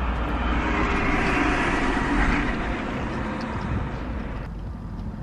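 A motor vehicle passing outside: a rushing noise over a low rumble swells to a peak about two seconds in, then drops away suddenly about four and a half seconds in.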